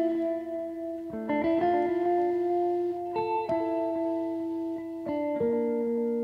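Background music: slow held chords that change every second or two.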